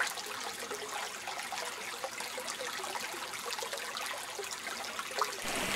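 A small forest stream trickling, a steady rush of running water that grows a little louder near the end.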